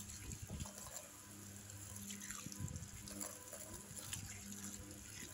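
Running tap water pouring onto peeled taro in a woven bamboo basket, splashing as hands rub and rinse the pieces clean.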